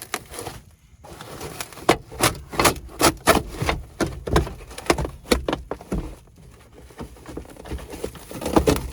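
Car interior trim parts being handled and worked loose: a quick irregular series of sharp clicks and knocks, busiest in the middle, with a few more near the end.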